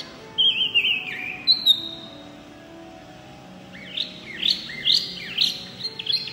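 A caged wambi (mini hwamei) songbird singing loudly in full song. It gives a run of whistled phrases sliding downward, pauses about two seconds, then a quick series of repeated rising whistles.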